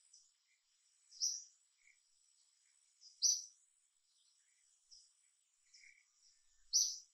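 Forest ambience: a short, high chirp sounding three times, a couple of seconds apart, over a faint steady high insect hiss.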